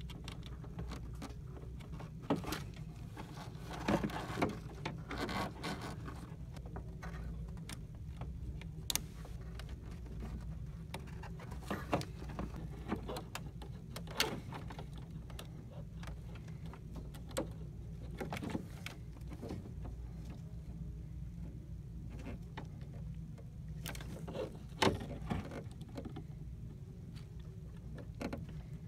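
Scattered small clicks and taps as printhead cables are seated and needle-nose pliers work the ink tubes inside an inkjet printer, over a steady low hum.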